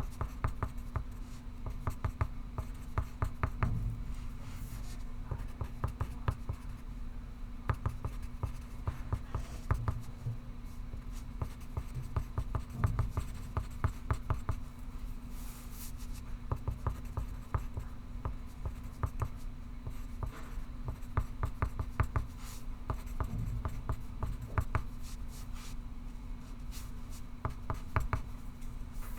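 Pencil scratching on paper in continual short strokes of writing, over a low steady hum.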